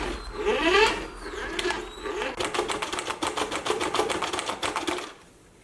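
A toy RC car's small electric motor and gears: short rising whines as the motor speeds up, then a rapid even clicking, about nine clicks a second, that fades out near the end.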